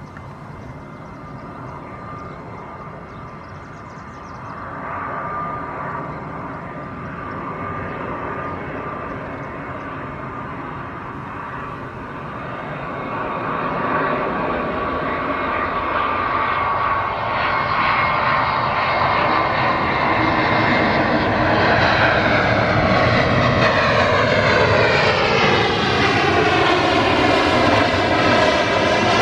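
Airbus A319 airliner's jet engines on final approach, touchdown and landing roll. The engine noise grows steadily louder, rising most from about the touchdown onward, and becomes a whine that sweeps in pitch as the airliner passes close by.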